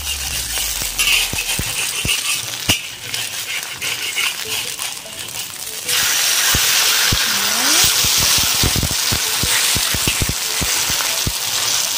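A flour-batter fritter of dried shrimp and shallots sizzling in oil in a wok, with a metal spatula clinking and scraping against the wok. About six seconds in, as the fritter is flipped, the sizzle suddenly gets louder and keeps up, with more spatula taps over it.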